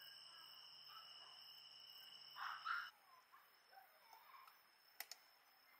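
Quiet outdoor ambience: a steady high insect trill that cuts off about three seconds in, just after a brief louder sound. Then faint scattered bird chirps and two sharp clicks near the end.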